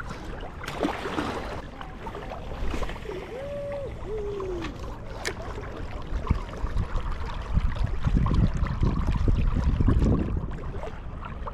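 River water flowing and gurgling. It swells into a louder low rumble between about eight and ten seconds in, and two short pitched calls sound near the middle.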